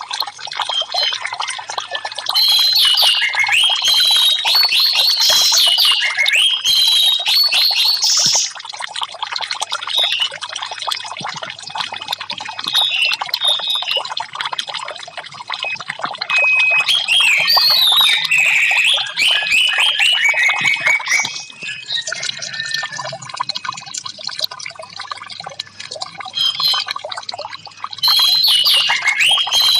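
Orange-headed thrush (anis merah) singing rapid, varied phrases in three loud bursts, with softer notes between, over a steady trickle of running water.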